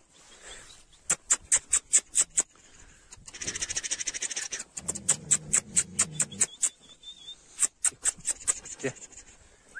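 A run of loud, rapid crunches, about five a second, starting about a second in and coming back after a pause, with a low, drawn-out animal call about five seconds in.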